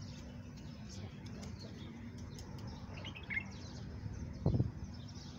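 Small birds chirping faintly and intermittently over a steady low hum, with one short louder low rumble about four and a half seconds in.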